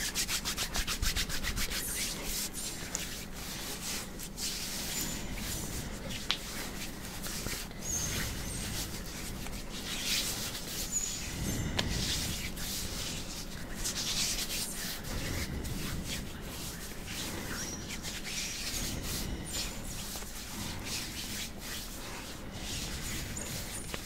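Hands rubbing bare skin on the arms close to the microphone: a continuous dry, hissing brush of skin on skin, with fast, evenly repeated strokes in the first couple of seconds and irregular louder swipes after.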